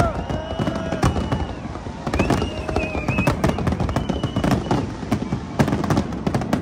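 Big fireworks display: dense, rapid bangs and crackling from many shells bursting at once. A few long, steady high tones sound over it in the first half and briefly again around four seconds in.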